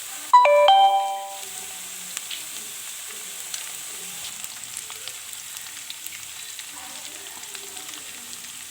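Chopped onion and chili paste frying in oil in a pan: a steady sizzle with stirring. Just after the start a loud, short chime of several notes sounds for about a second and fades.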